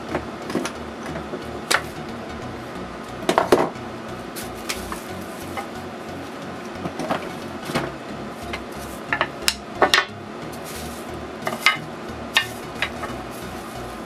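Quick-release bar clamps being let off and the wooden frame pieces of a casting mould clacking and knocking on the bench as a cured resin blank is freed: an irregular run of sharp clicks and knocks, the loudest cluster a few seconds in and another around the middle.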